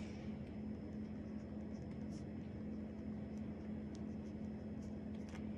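Faint short scratches of a pen writing on paper over a steady low hum.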